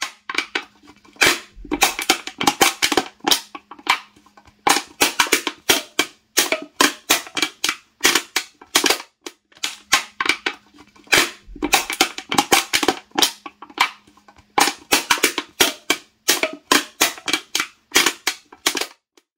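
An aluminium beer can being crumpled in the hand: a dense run of sharp metallic crackles and pops that stops briefly a little before halfway, then starts again.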